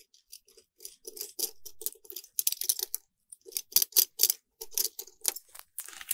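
Scattered light clicks and rattles of lineman's pliers working copper wire ends and the small metal driver box of a recessed LED light being handled.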